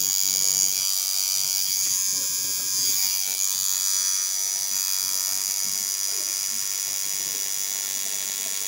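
Pen-style rotary tattoo machine running with a steady high-pitched buzz while its needle lines a tattoo on skin.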